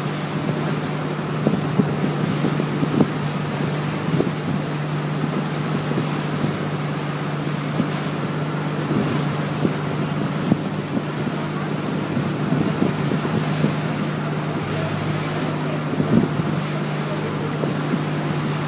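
Pump boat (motorized outrigger bangka) underway, its engine running with a steady, unchanging drone. Water rushes past the hull and wind buffets the microphone.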